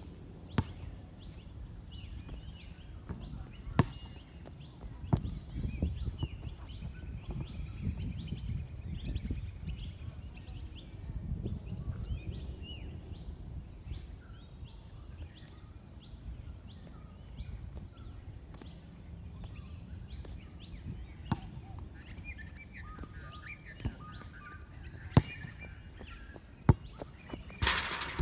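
A bird chirping over and over, about two short high calls a second, over a low rumble. A few sharp knocks stand out, and near the end a hand handling the phone makes a brief rustling burst.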